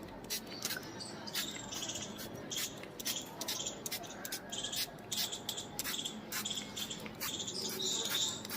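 A run of light, irregular clicks, several a second, mixed with short scratchy high-pitched rustles.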